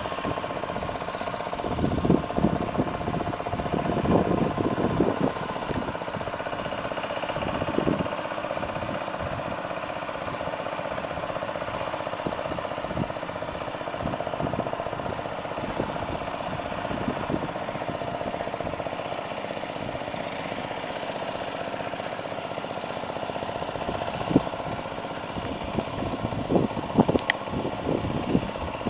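Single-cylinder diesel engine of a power tiller running steadily under load as it churns through a flooded paddy field on cage wheels. Occasional louder thuds stand out, most in a cluster near the end.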